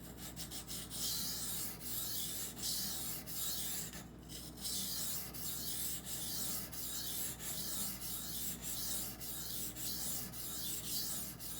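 Knife blade of CPM-20CV steel being stroked back and forth across a wet Norton 1000 grit water stone: a rhythmic gritty scraping, roughly one to two strokes a second, with a short break about four seconds in.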